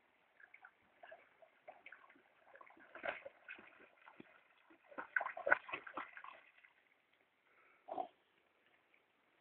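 A dog splashing through shallow pond water as it swims to the bank and wades out, in irregular splashes that are loudest about five to six seconds in. One short, louder sound comes near the end.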